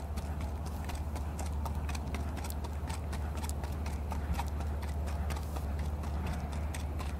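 Hoofbeats of a ridden Icelandic horse moving at a lively gait on a riding track, a quick run of sharp clopping strikes, over a steady low rumble.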